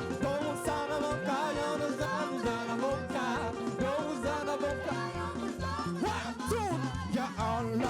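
Live praise band playing upbeat African gospel music over a steady bass line and percussion, with the women of the congregation singing a Hausa praise chant in response to the leader.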